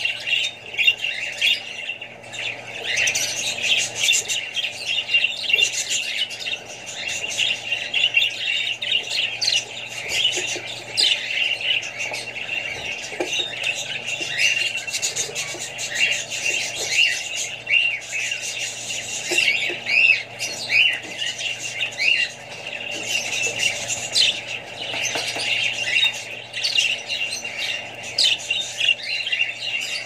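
Budgerigars chirping and chattering continuously, many short calls overlapping.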